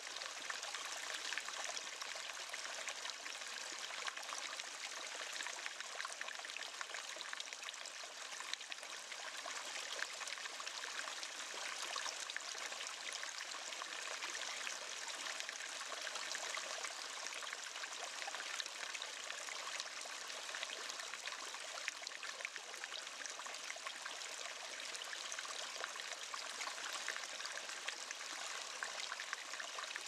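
Running water trickling and burbling steadily, an even stream-like rush full of tiny splashes, with no rise and fall.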